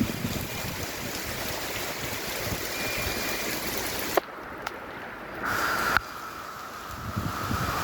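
Rain falling heavily with a steady hiss. About four seconds in there is a click and the sound drops abruptly, coming back with another click about two seconds later, along with a faint steady high tone.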